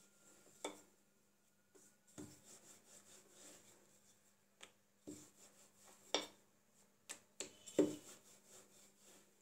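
Ridged wooden rolling pin rolling out dough on a smooth countertop: a faint rubbing and rasping, broken by about six sharp knocks, the loudest near the end.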